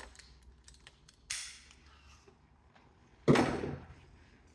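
Tools and a freshly cut piece of 3/4-inch PEX pipe being handled: a few light clicks, a short scrape about a second in, then a loud sharp knock about three seconds in that rings out briefly.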